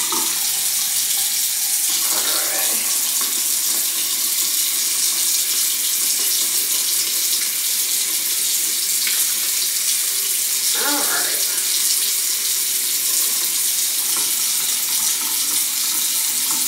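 Bathroom sink tap running steadily: an even hiss of water that does not change.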